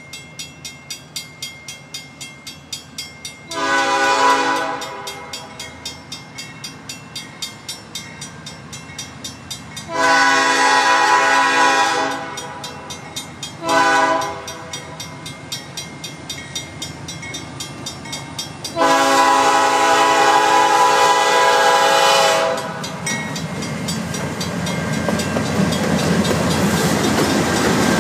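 Nathan P5 five-chime air horn on a Norfolk Southern GE Dash 9-40CW sounding the grade-crossing signal: long, long, short, long. Under it the crossing-signal bell rings at a steady beat of about two strikes a second. From about 23 s on, the approaching diesel locomotives rumble louder and louder.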